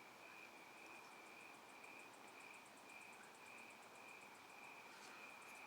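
Near silence with faint insect chirping: a steady high trill, joined about half a second in by a rapid, even, very high pulsing.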